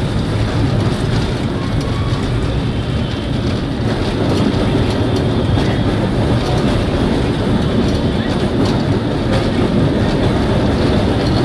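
Burn Standard tram car running along street rails, heard from inside the car: a steady rumble of wheels and running gear with occasional faint clicks.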